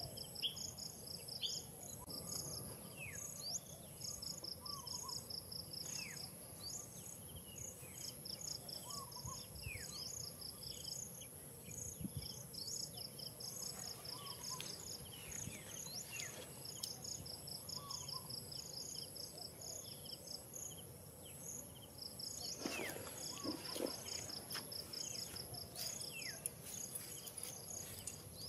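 Outdoor insect chorus: trains of rapid high-pitched chirping pulses that start and stop every few seconds over a constant thin whine. A bird calls briefly now and then, and there is a short rustle about two-thirds of the way through.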